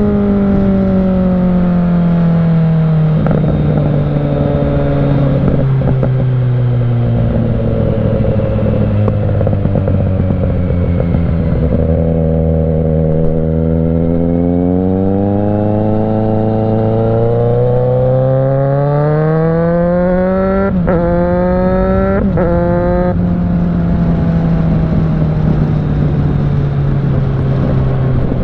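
Kawasaki Z900's inline-four through a Mivv GP Pro exhaust on the move: the engine note falls slowly as the bike slows, then climbs steadily under acceleration. Near the top of the climb come two short sharp cracks where the note briefly drops, and then it settles into a steady cruise, easing gently down.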